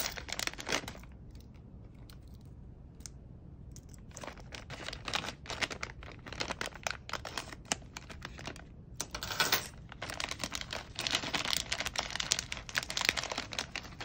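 Plastic packet crinkling and crackling as it is handled and opened, in quick irregular bursts, with a quieter stretch about a second in before the crinkling picks up again.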